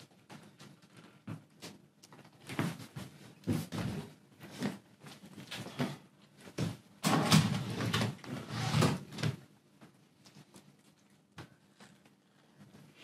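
A series of irregular bumps and scrapes, loudest in a cluster about seven to nine seconds in, then dying away.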